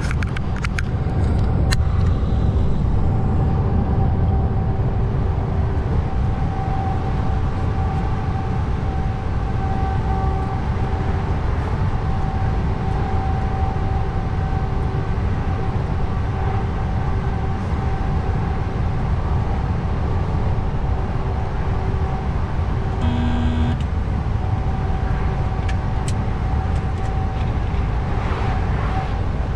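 A truck driving on the road: a steady engine and road rumble with a constant whine running through it. Late on there is one short, pitched toot.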